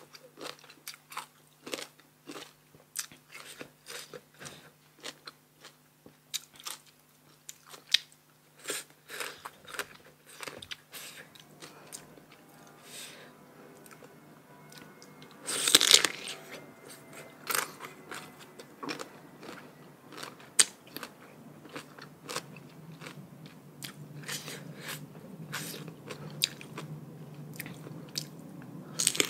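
Close-up crunchy bites and chewing of crisp, sour green mango (mamuang bao), a quick run of sharp crunches. One bite about sixteen seconds in is much louder than the rest.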